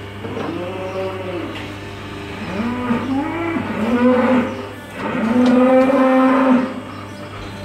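Cow mooing: three drawn-out calls, the last the longest, over a steady low hum.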